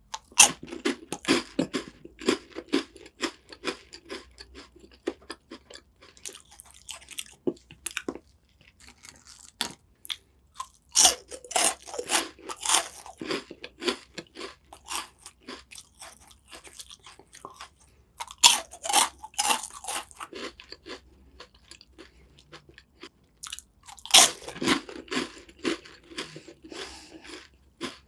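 Close-miked crunching of crisp cracker sticks being bitten and chewed, in four bouts of dense crunching with lighter chewing in between.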